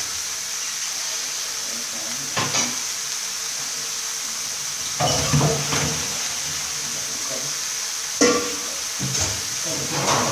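Vegetables and pork frying in a wok with a steady sizzle, broken by a few brief clatters, the sharpest a little past eight seconds in.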